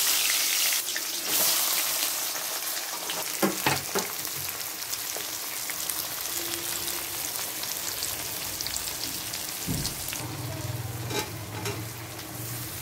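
Onion frying in hot oil in a karai: a steady sizzle, loudest at the start and easing a little, with a few short knocks about three and a half seconds in as it is stirred.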